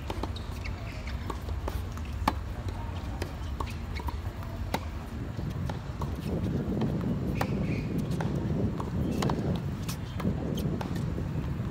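Tennis balls being struck by rackets and bouncing on hard courts: a string of sharp pops at irregular intervals, some close and some further off, over a steady low rumble.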